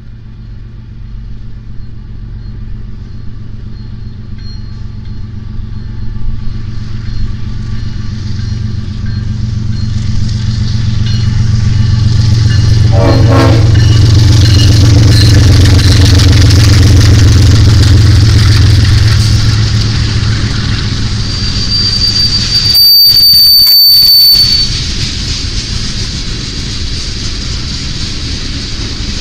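Diesel freight locomotives passing close: a deep engine rumble that builds, peaks in the middle and eases off, with rail and wheel noise. Near the end, a high-pitched steady squeal lasts about two seconds.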